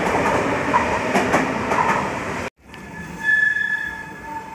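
Nuremberg U-Bahn train rolling along the platform, a steady rumble with repeated wheel clicks over rail joints. About halfway through the sound cuts off abruptly, then a quieter, more distant train is heard with a high, steady wheel squeal.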